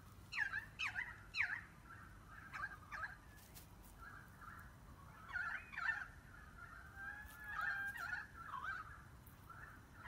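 A flock of Eurasian tree sparrows chirping as they feed, in short clusters of quick, sweeping chirps. The loudest bursts come about half a second in, around six seconds and around eight seconds.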